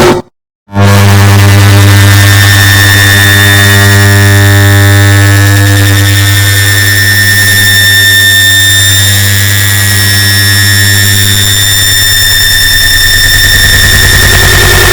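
Air conditioner start-up sound played back extremely loud and distorted: after a brief silence it cuts in with a steady low hum, high whining tones and a wash of noise.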